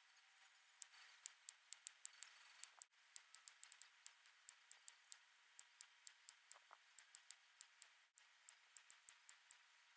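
Small dolphin-shaped nail clipper snipping nails: a rapid run of sharp clicks, about three a second.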